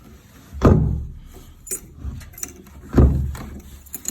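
Two heavy thumps of a door about two seconds apart, with keys jingling and small metallic clicks of the lock hardware between them.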